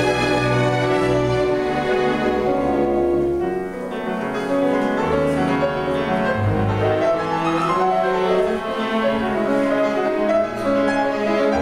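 Symphony orchestra playing classical music live, the bowed strings to the fore with the full orchestra.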